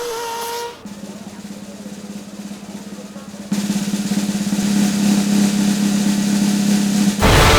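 Snare drum roll building suspense, getting louder about halfway through, then breaking off in a sudden loud crash near the end. A brief held tone comes just before the roll starts.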